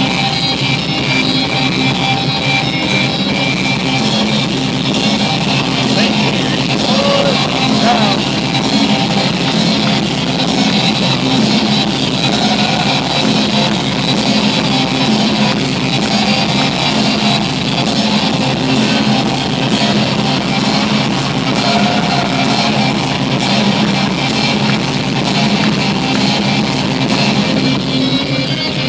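Loud rock music with drums and guitar played over an arena sound system, recorded on a phone at poor sound quality.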